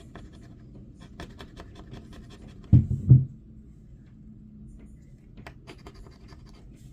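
Quick scratching strokes on a crossword scratch-off lottery ticket, in two spells, with two dull low thumps close together about three seconds in.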